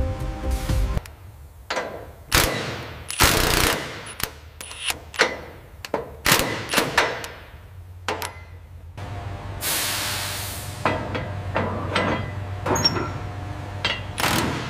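Assembly-line clatter: a string of sharp metallic clanks and knocks at irregular intervals. A hiss comes about ten seconds in, and a low steady hum runs under the second half.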